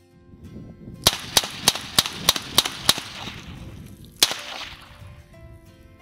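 Small revolver fired quickly: seven sharp shots about a third of a second apart, then one more shot just over a second later, each ringing briefly across open ground.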